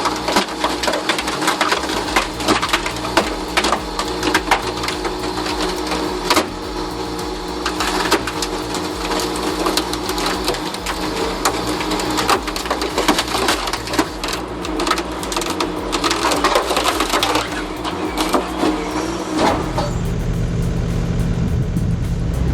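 Wood-processing machinery running, a steady mechanical hum with frequent sharp knocks and clatter. About 19 seconds in, it gives way to a deeper, steadier engine rumble.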